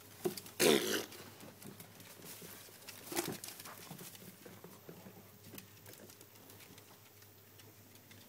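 A young pet dog gives a short, loud wavering vocal call about half a second in, then a shorter one just after three seconds, with faint scuffs and ticks of play after that.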